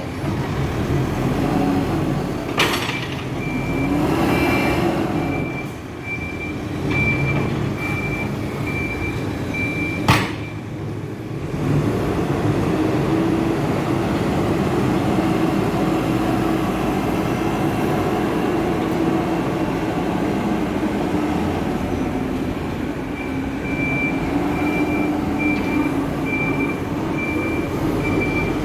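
Hidromek 102B K4 Supra backhoe loader's diesel engine running under working load, with a backup alarm beeping about twice a second for the first ten seconds and again near the end. Two sharp knocks, one about two and a half seconds in and one about ten seconds in.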